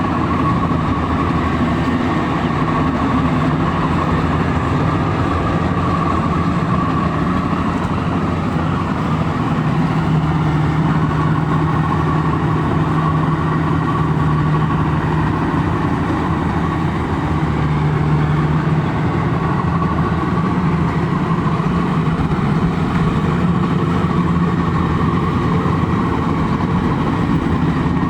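Combine harvester engine running steadily, with a steady low hum and a higher whine held throughout.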